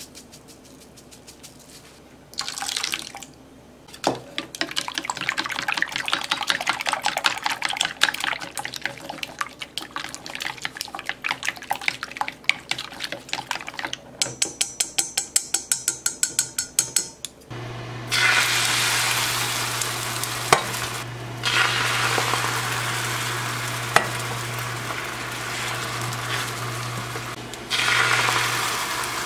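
Chopsticks beating eggs in a stainless steel bowl: a fast, rapid clicking rattle. Then an induction hob runs with a steady low hum and a hiss of the pan heating, and near the end egg batter sizzles as it is poured into a rectangular rolled-omelette pan.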